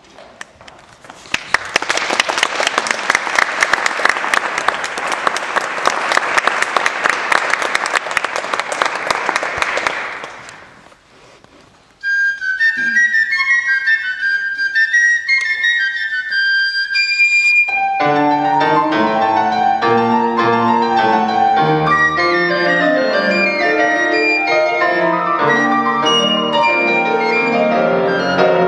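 Audience applause that dies away into a short hush. A piccolo then plays a high unaccompanied melody, and after a few seconds a grand piano comes in with chords beneath it.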